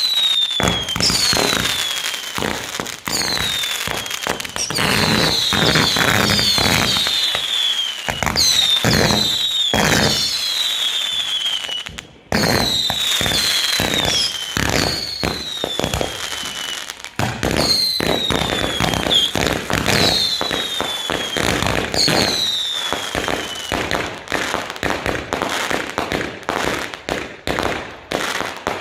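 Fireworks going off in quick succession: many shrill whistles, each falling in pitch over about a second, overlapping with sharp bangs and crackles. The whistles thin out in the last few seconds, leaving scattered bangs.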